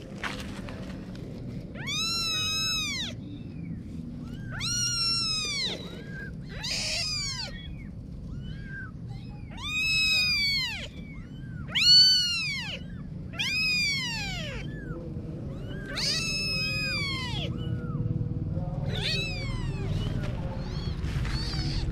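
Kitten meowing over and over, about one high-pitched meow every two seconds, each rising then falling in pitch.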